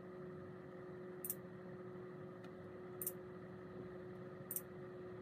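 Faint steady hum with three short, high clicks about a second and a half apart: the mouse-click sound effects of an animated subscribe button being clicked.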